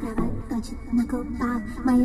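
A song playing: music with a steady beat and a repeating melodic line.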